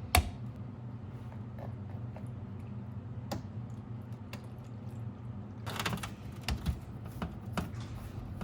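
Clicks and light knocks of a paint mixing cup and clear coat containers being handled, over a steady low hum. The sharpest click comes just after the start, with a cluster of them about six seconds in.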